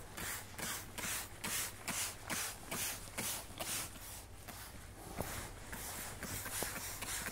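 Degreaser being sprayed onto an airplane engine in rapid short squirts, about two or three hissy spurts a second, easing off after about five seconds.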